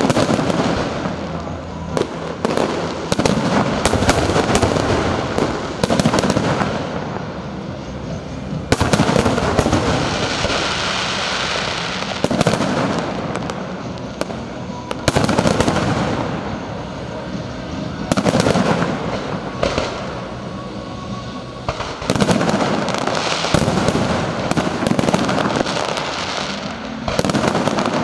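Aerial fireworks display: a continuous barrage of shell bursts and crackling, building into heavier volleys every two to three seconds.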